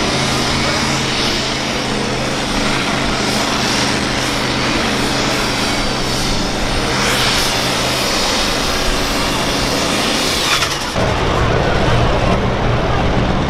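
A super stock diesel pulling tractor's engine running hard under full load as it pulls the weight sled, with exhaust noise reaching high up. About eleven seconds in, it cuts abruptly to a different, louder diesel tractor engine.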